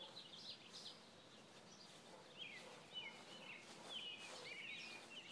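Faint birdsong: quick, twittering chirps that thin out about a second in and pick up again past the middle.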